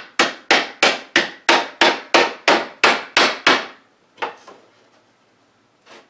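Hammer striking a wooden picture frame: about ten sharp, evenly paced blows at roughly three a second, then a couple of lighter taps and one more blow near the end.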